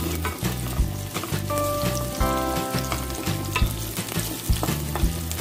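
Chopped garlic sizzling in hot oil in a metal pot while a wooden spatula stirs and scrapes it, over background music with a steady beat.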